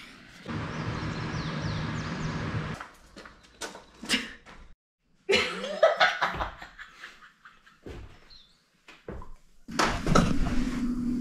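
Two people laughing, among scattered sharp clicks and knocks of handling.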